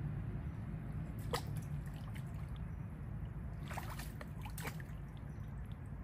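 Water splashing and trickling, with short splashes about a second in and again around four seconds in, over a steady low rumble.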